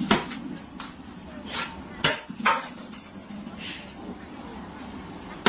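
A few sharp knocks or clatters of hard objects, the loudest about two seconds in, over a quiet steady background.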